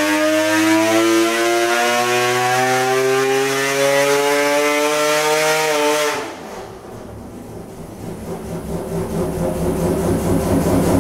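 Mazda rotary race engine running on an engine dyno, its note climbing steadily in pitch as it pulls up through the revs. About six seconds in, it cuts to a 20B three-rotor peripheral-port engine running lumpy and pulsing at lower revs, picking up again near the end.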